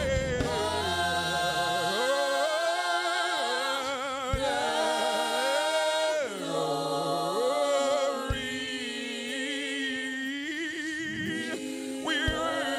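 Unaccompanied gospel worship singing: a lead voice draws out a phrase of praise in long, held notes with wide vibrato, sliding between pitches. Low backing sound drops out about two seconds in.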